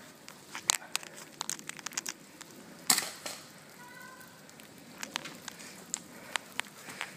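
Scattered sharp cracks and ticks of airsoft gunfire and BBs striking branches, with one loud crack about three seconds in, over light rustling of brush.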